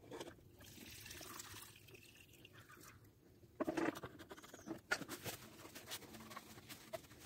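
Gasoline being emptied from an Echo SRM-210 trimmer's fuel tank into a container: a faint pouring sound, then light clicks and taps from handling the tank and container from about the middle on.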